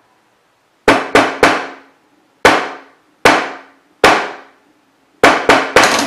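Knocks by hand on the lid of a wooden box: three quick knocks, three slower evenly spaced ones, then four quick ones near the end, each with a short ringing decay. This is a knock code read by a knock sensor inside the box, and this one is the correct code that releases the box's magnetic lock.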